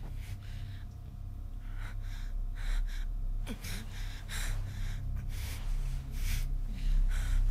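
A person gasping and breathing hard in short, uneven breaths that grow louder, over a steady low rumble.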